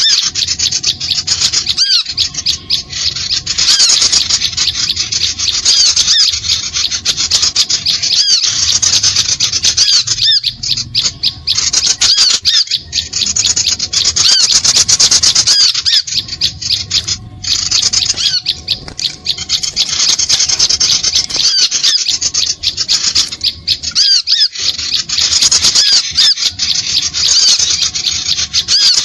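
Small birds chirping and trilling rapidly and without pause, high-pitched and excited. It is a bird-lure (pikat) call used to draw small birds in.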